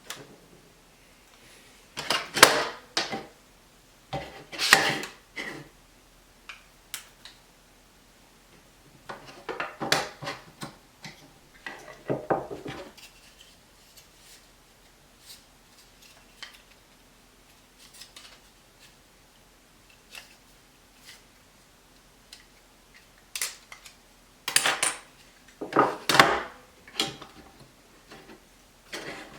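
Hard drives and plastic NAS drive trays being handled: irregular bursts of sharp clicking and clattering, separated by quiet gaps, loudest near the start and near the end.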